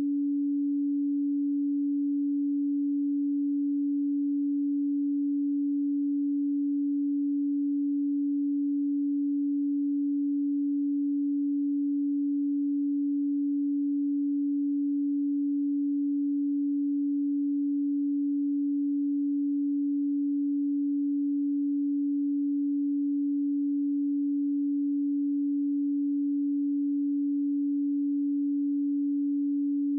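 A pure 285 Hz sine tone, one steady hum held at an even level with no music or other sound over it.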